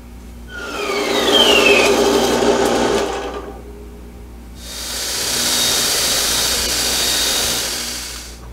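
Metal-cutting bandsaw cutting through a steel bar, in two stretches of about three seconds each with a short break between. The first opens with a falling whine, and a steady high whine runs through the second.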